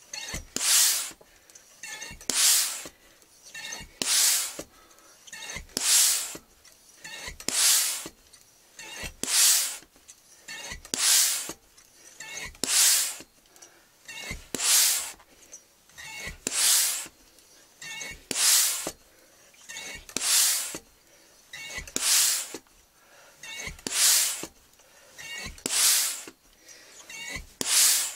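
FX three-stage hand pump being worked steadily, charging a Weihrauch HW100 TK air rifle's cylinder from empty: a loud hiss of air on each stroke, about one stroke every two seconds, with a fainter hiss between strokes.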